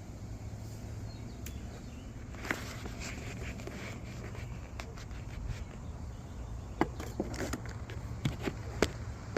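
Scattered light clicks and knocks of parts being handled over a steady low hum, with a few sharper clicks near the end, as a steel oil pan is readied to go onto an engine.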